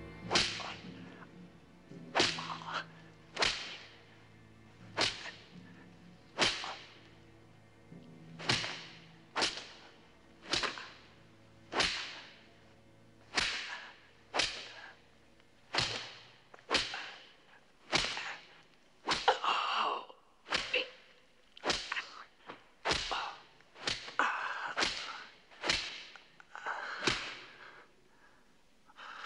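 A whip lashing a man's back in a flogging: about two dozen sharp swish-and-crack strokes, a little over a second apart. A low music drone fades out partway through.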